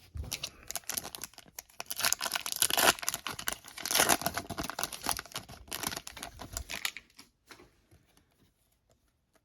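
A trading-card pack wrapper crinkling and being torn open. The crackling runs for about seven seconds, then stops.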